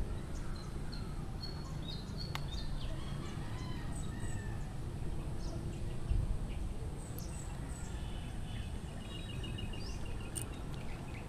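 Outdoor ambience: a steady low rumble of wind on the microphone, with scattered short bird chirps and, near the end, a quick run of rapid chirps.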